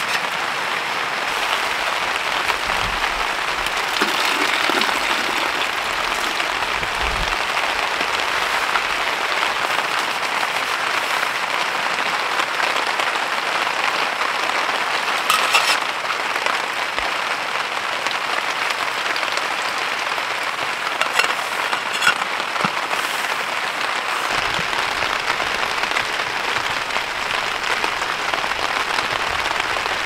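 Heavy rain falling steadily on a tent's fabric roof, with a few light clicks and knocks now and then.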